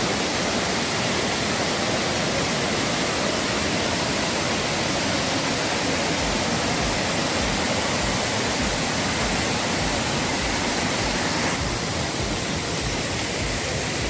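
Steady rush of a mountain stream cascading over boulders at the foot of a waterfall.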